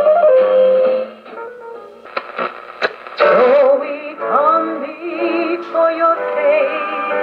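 Music with singing from a shortwave broadcast, played through a Realistic DX-150B receiver's speaker as the tuning knob is turned. The music fades about a second in, a few crackles come through, and then a station with singing comes in loud from about three seconds.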